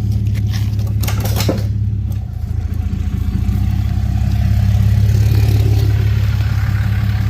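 Dodge Ram 2500's Cummins turbo-diesel engine running with a steady low drone, with a few sharp clicks or rattles in the first second or so, easing off briefly and then pulling harder and louder about halfway through.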